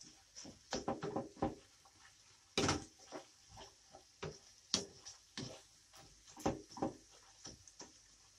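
Wooden spoon stirring and scraping ground beef and chopped onion around a nonstick frying pan: irregular soft scrapes and knocks, about one or two a second, the strongest a little under three seconds in.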